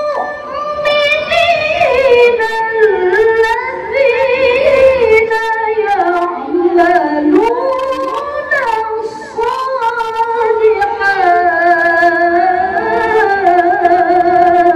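A woman reciting the Quran aloud in melodic tilawah style into a microphone. She holds long, ornamented notes that waver and glide between pitches, in long phrases with short breaks between them.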